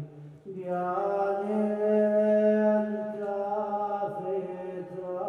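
A man's solo voice chanting an Arabic Shia mourning elegy for Imam Husayn. After a short breath about half a second in, he holds long, slightly wavering notes, loudest in the middle.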